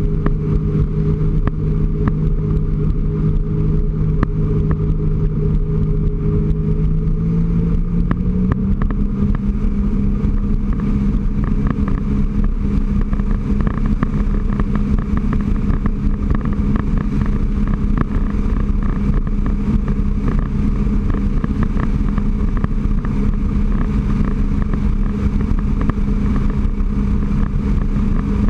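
2008 Sea-Doo RXT personal watercraft's supercharged Rotax 4-TEC three-cylinder engine running steadily under way, its pitch stepping up slightly about eight seconds in and then holding steady.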